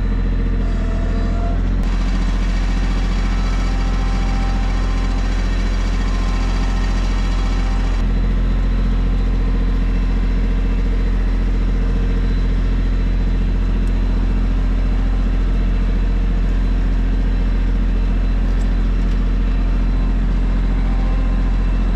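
Tractor engine running at steady revs while being driven, a low, even hum with its overtones. Its tone shifts slightly about two seconds and again about eight seconds in.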